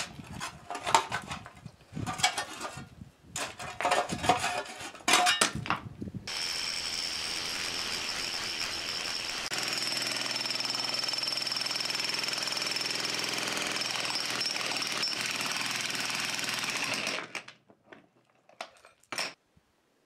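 A sharpshooter spade striking and scraping into rocky dirt several times, then a 60-pound electric jackhammer breaking into the hard, rocky ground, running steadily for about eleven seconds before it stops.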